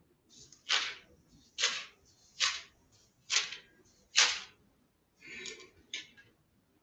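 Pages of a Bible being flipped by hand: five quick papery swishes about a second apart while looking for a passage, then a softer rustle and a light tap near the end.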